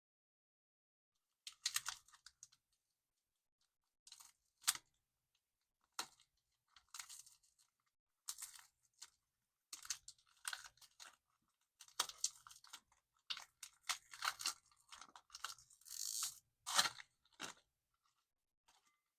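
A Loacker wafer pack being unwrapped and handled, crinkling and crunching in irregular short crisp bursts with silent gaps between them, busier in the second half.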